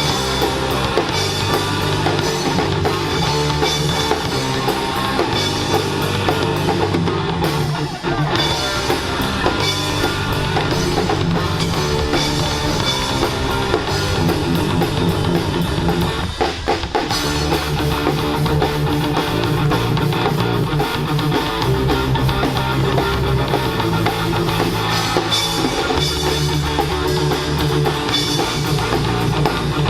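Live rock band playing: drum kit and electric guitar with bass, loud and continuous, with a brief break about sixteen seconds in.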